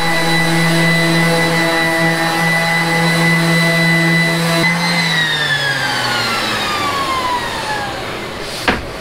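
Electric random orbital sander running on a plywood face, a steady motor whine. About halfway through it is switched off and its pitch falls as the pad spins down, and a short knock follows near the end.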